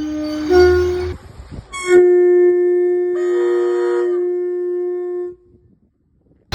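British train horn sounding: a low note stepping up to a higher note, then after a short rush of noise a single long high note of about three seconds, with a second tone briefly joining it, cut off suddenly.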